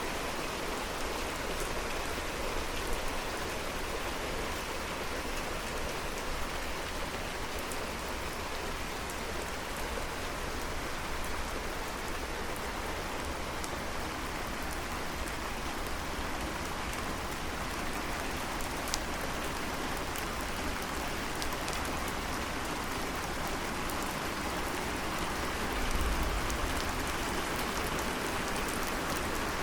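Steady rain falling, an even hiss with scattered drop ticks; a brief low rumble swells about 26 seconds in.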